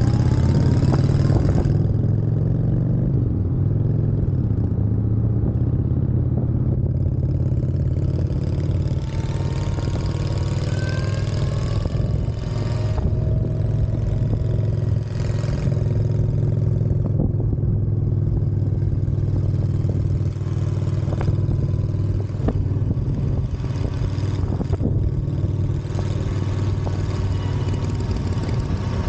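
Motorcycles on the move, heard from on the bike: a steady low engine drone with wind rush, and a whine that rises in pitch about ten seconds in.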